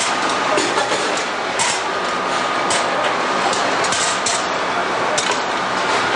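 Plier factory floor noise: machinery running steadily, with irregular sharp metallic clanks and knocks through it.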